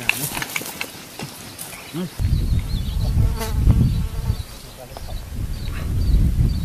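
An insect buzzing close by, with uneven low rumbling that comes in about two seconds in and small high chirps.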